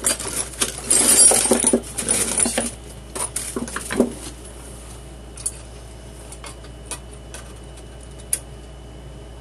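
Metal hand tools clinking and rattling against each other as they are rummaged through, busiest in the first two or three seconds, then a few scattered light clicks.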